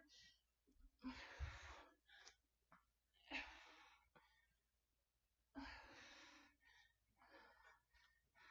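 A woman's heavy breathing during a dumbbell deadlift and lunge set: three strong, breathy exhales about two to two and a half seconds apart, then fainter, shorter breaths near the end.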